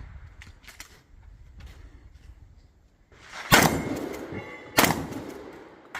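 Two 12-gauge pump-action shotgun shots about a second and a quarter apart in the second half, each sharp and trailing off, with faint ringing after the first. A few light clicks come before them.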